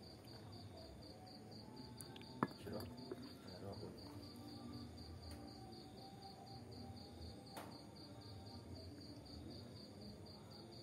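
A cricket chirping steadily, a high pulsing trill of about four pulses a second, over faint room noise. A single sharp click comes about two and a half seconds in.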